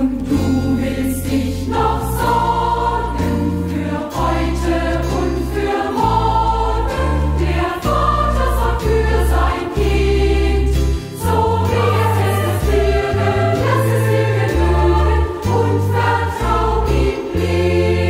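Youth choir singing with instrumental accompaniment, over a bass line that moves note by note about once a second.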